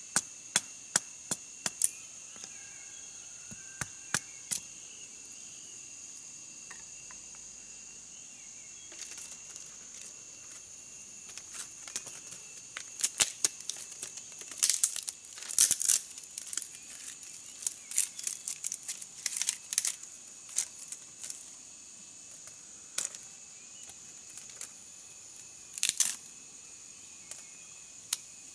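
A steady high insect trill runs under a series of sharp clicks and snaps from close handwork. The clicks are sparse at first, come thick and busy for about ten seconds in the middle, then thin out again.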